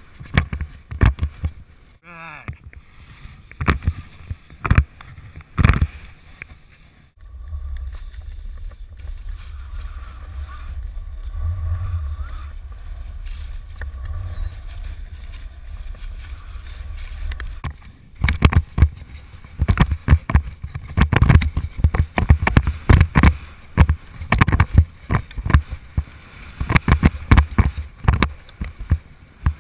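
Skis running through powder snow and wind buffeting an action camera's microphone, heard as irregular loud bursts of rough noise. For a stretch in the middle this gives way to a steady low rumble, and the bursts come thick and fast again in the last third.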